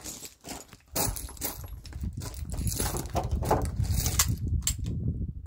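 A series of light clicks and knocks over a steady low rumble, stopping shortly before the end.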